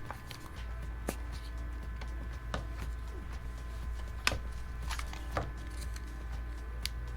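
Scattered light clicks and taps of computer parts being handled during a PC build, about six in all, over a steady low electrical hum that comes in about half a second in.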